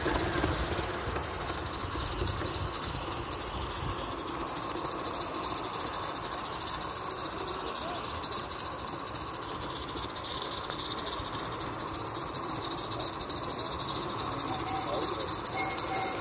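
Live-steam narrow-gauge model locomotive, a Roundhouse Taliesin, running under steam at normal speed: a steady high hiss of steam and exhaust with a fast, even beat running through it.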